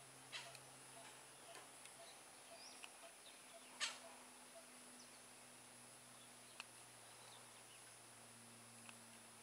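Scattered short calls from a flock of red-breasted parakeets, the loudest about four seconds in, with a few fainter chirps between.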